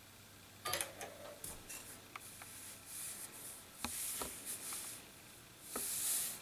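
Keys clicking on an IBM PC Convertible keyboard as it is rebooted, then several short hissing, scraping bursts from its 3.5-inch floppy drive as the machine restarts, the loudest near the end.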